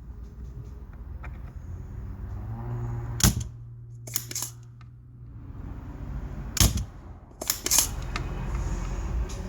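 Several sharp clicks and snaps from tools at work on a circuit board during desoldering, over a steady low hum.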